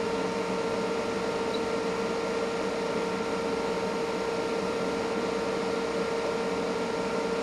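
Steady hum of electronic test equipment on a bench, with a constant mid-pitched whine over a flat hiss and no change throughout.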